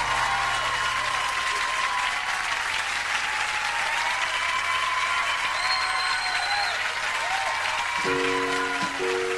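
Concert audience applauding and cheering with whistles as the band's last held chord fades out in the first second. About eight seconds in, a piano starts playing soft held notes over the applause.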